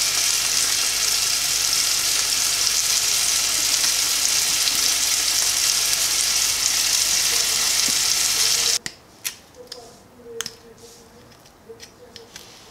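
Chicken frying in a pan, a steady sizzle that cuts off abruptly about nine seconds in, followed by a few light clicks and taps.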